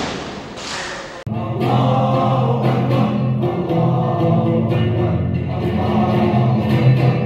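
A group of men singing together in chorus, a steady sung melody that begins abruptly about a second in, after a short rush of noise.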